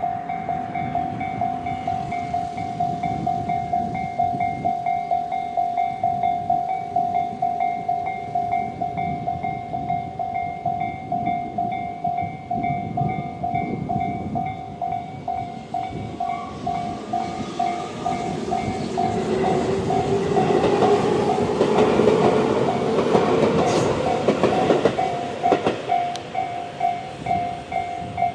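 Tobu-type electronic level-crossing warning bell dinging in a steady, even rhythm. About halfway through, a Tobu 20400-series electric train approaches and passes over the crossing with a building rumble, wheel clatter and a faint rising whine. The pass is loudest a little past two-thirds of the way in, and the bell cuts off right at the end.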